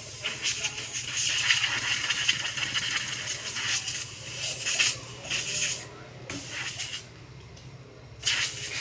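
Refrigerator compressor running with a steady low hum while air hisses out of the refrigerant line. The compressor is pumping the system down in place of a vacuum pump. The hiss is strongest for the first few seconds, then breaks up and fades after about six seconds.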